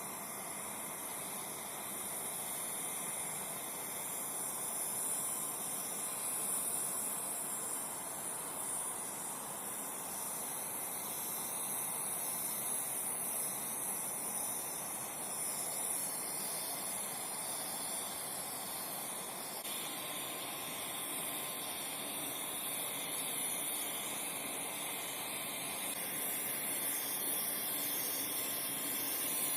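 Steady, fairly quiet hiss, strongest in the high treble, with little bass.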